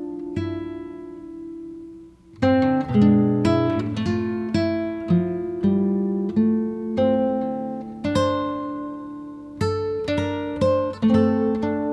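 Acoustic guitar music: plucked and strummed notes that ring and fade, with a short lull about two seconds in.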